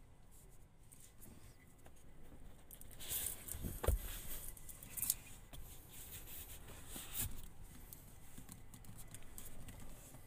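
Quiet rustling and handling noise inside a car's cabin: crinkling of plastic protective seat covers and a hand on the rear centre armrest, with a few soft knocks, the loudest about four seconds in and another about seven seconds in.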